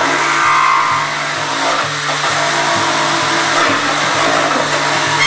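A handheld corded power tool running at high speed against the fibreglass body shell around a rear light opening, a loud, dense hiss with a high whine in the first second. It stops suddenly at the end.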